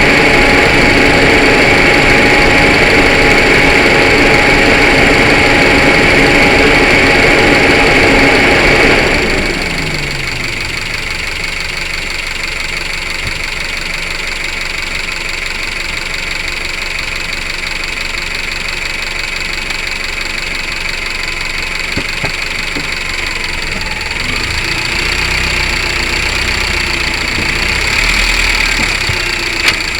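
Honda Civic 5D running: a loud steady engine sound drops sharply about nine seconds in, falling in pitch, and then settles into quieter steady running. A few short sharp knocks come through later, the sort the owner is chasing from the right front wheel area.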